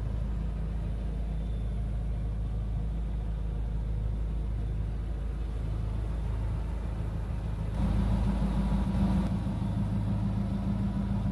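Ford SVT Lightning pickup's supercharged 5.4-litre V8 idling steadily, a low-pitched sound that gets louder about eight seconds in.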